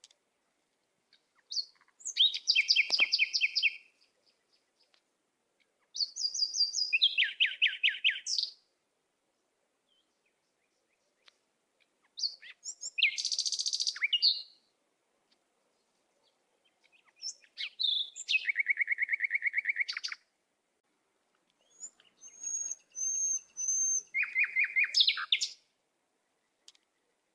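A songbird singing in five separate phrases of rapid, high trills and chirps, each about two to three seconds long, with silent gaps between them.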